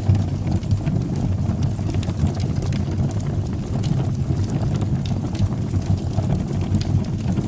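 Wood fire burning in a fireplace: a steady low rumble of flames with scattered faint crackles and pops.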